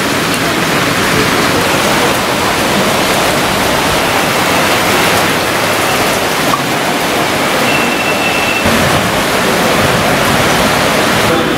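Rain falling steadily in a dense, even hiss, with drops splashing onto wet pavement and puddles.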